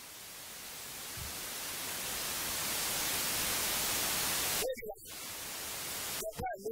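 Steady hiss of recording noise, slowly growing louder during a pause in speech, broken off abruptly by a short spoken word about three-quarters of the way through and then returning.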